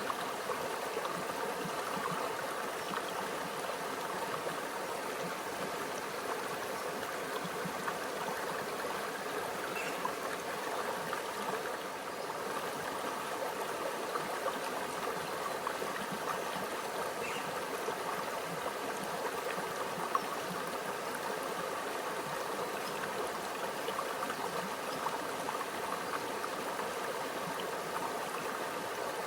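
A small stream running over rocks, a steady trickling and gurgling flow with no other sound.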